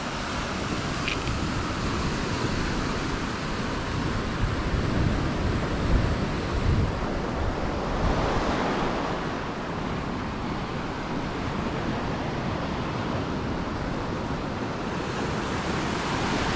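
Small ocean waves breaking and washing up a sandy shore, with wind gusting on the microphone a few times in the middle.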